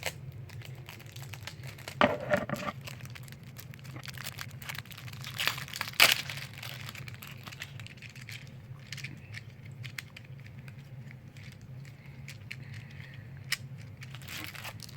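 Packaging crinkling and tearing as a fidget toy, an infinity cube, is unwrapped by hand, with scattered small clicks and two louder rustles about two and six seconds in.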